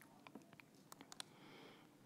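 Near silence: room tone with a few faint, short clicks in the first second or so.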